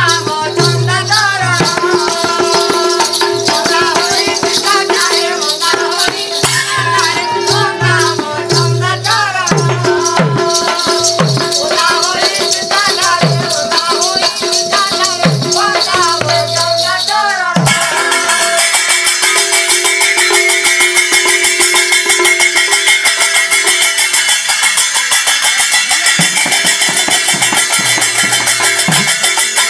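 Odia folk music with rapid rattling and jingling percussion under a wavering melody and a steady held tone. A little past halfway it cuts abruptly to a denser, even jingling rhythm.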